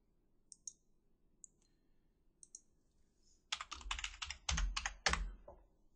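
Computer keyboard typing a password into a login box: a quick run of keystrokes starting about three and a half seconds in and lasting about two seconds. Before it come a few faint mouse clicks.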